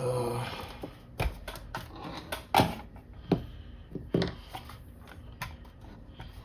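Irregular clicks and knocks of tools and parts being handled on a workbench, a few sharper taps among lighter rattles.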